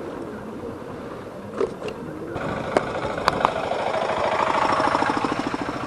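Yamaha FZ motorcycle's single-cylinder engine running at low speed, with a steady pulse that gets louder in the last couple of seconds. A few sharp clicks come in the first half.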